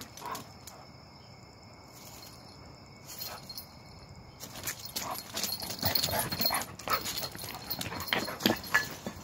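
Dogs moving about in dry leaf litter and on concrete: quiet at first, then from about halfway a busy run of short scuffs, rustles and taps, with one brief high squeak near the end.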